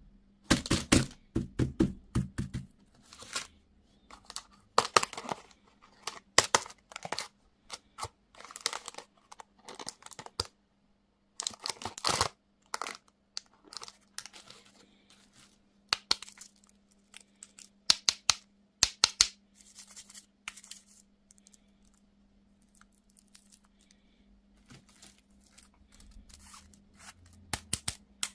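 Candy wrappers being torn open and crinkled by hand, in irregular bursts of sharp crackling with short pauses between them.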